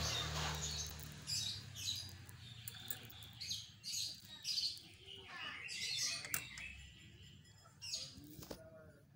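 A battery-powered mini hand mixer's motor whirs and stops within the first second. Then small birds chirp in short, high notes every half second to a second, with a few light clicks.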